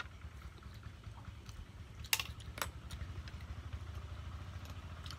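A small engine idling steadily, a low pulsing hum, with two sharp clicks about two seconds in, half a second apart.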